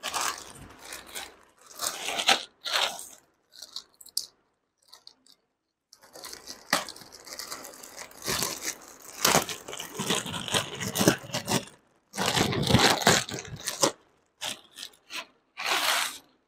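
Plastic mailer bag and inner plastic wrap crinkling and tearing as they are pulled open by hand, in irregular bursts with short pauses.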